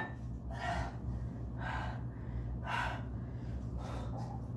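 A man breathing hard through his mouth, short hissing breaths about once a second, the reaction of a mouth burning from a very spicy hot sauce. A steady low hum runs underneath.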